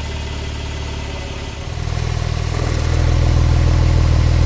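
Porsche 992 Turbo S twin-turbo flat-six running at a steady engine speed through a Capristo exhaust with 200-cell catalysts, growing louder about two seconds in and then holding steady.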